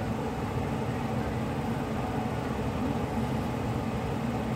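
Steady low mechanical hum of room background noise, unchanging throughout.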